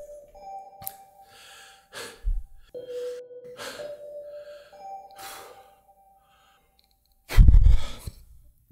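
Soft background music of slow held notes, with a winded man breathing heavily and sighing every second or two. About seven seconds in there is a loud, low-pitched burst of noise.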